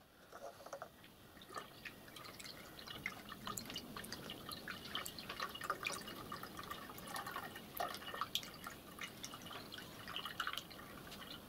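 Water poured from a plastic bottle through a funnel into a miniature steam locomotive's side water tank: a faint, irregular trickle with many small plinks and splashes.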